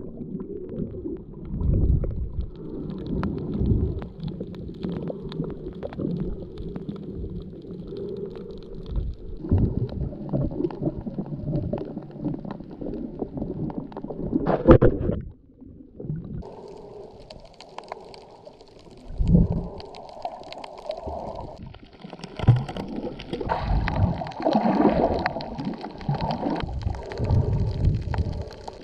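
Muffled underwater sound from a submerged camera while snorkeling: low rumbling and gurgling water with irregular knocks and bumps. About halfway through it drops out briefly, then comes back brighter and hissier.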